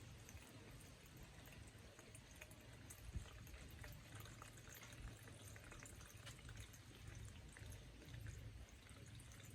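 Near silence: a faint low rumble with scattered small clicks, one sharper tick about three seconds in.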